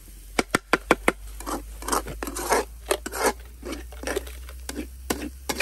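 Metal spatula scraping and clacking against a frying pan while stir-frying minced meat: an irregular run of sharp scrapes and taps.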